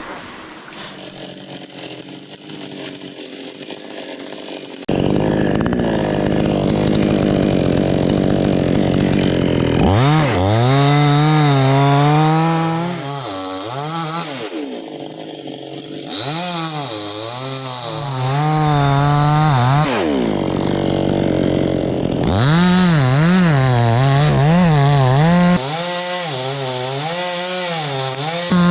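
Two-stroke chainsaw cutting teak: it starts running steadily about five seconds in, then works through the wood in three spells, its engine pitch wavering up and down as it loads and unloads in the cut.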